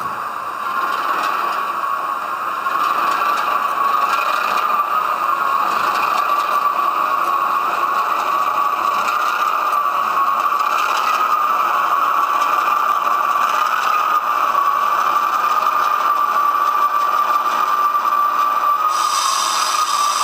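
Class 08 diesel shunter engine sound played through the small on-board speaker of an OO gauge model locomotive's DCC sound decoder as the model runs along the track: a steady, slightly wavering drone with no deep bass. A brief hiss comes in near the end.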